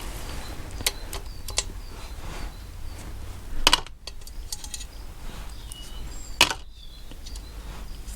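Small loose steel engine parts clinking against each other and being set down on a metal surface: a few scattered sharp clinks with a brief ringing, the loudest about four seconds and six and a half seconds in.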